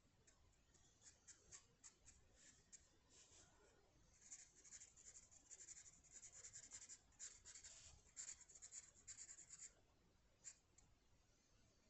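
Faint scratching of a drawing tool on paper: quick, short strokes one after another, busiest in the middle and thinning out near the end.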